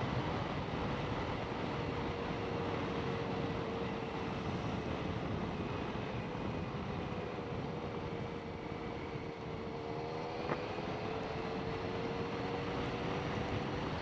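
BMW K1200GT four-cylinder motorcycle under way in the rain: steady engine, wind and wet-road tyre noise, with a faint even whine that dips slightly in the middle and climbs back.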